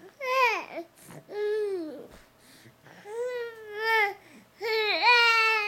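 Baby babbling: four drawn-out, high-pitched vocal sounds, each bending up and down in pitch, the last and longest starting a little before the end.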